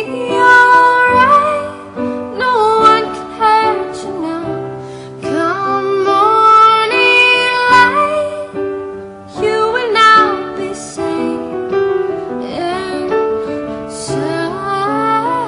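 A solo voice singing a slow, tender melody with long held notes over piano chords.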